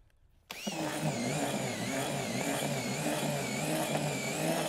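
Cordless drill running a whisk attachment, churning groundbait in a plastic bucket. It starts about half a second in, and the motor's whine wavers in pitch as it works through the mix.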